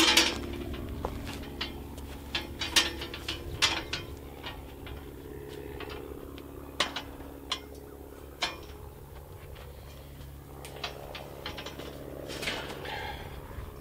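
Metal hand truck rattling and clanking as it is wheeled over dirt and its nose plate is pushed under a steel-wire chicken run frame, with scattered sharp metal knocks and clicks.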